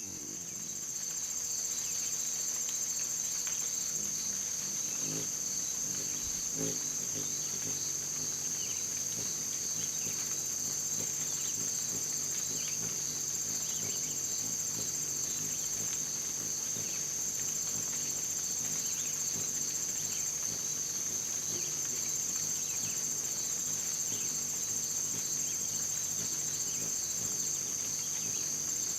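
Steady, unbroken high-pitched insect chorus, with faint short chirps scattered through it.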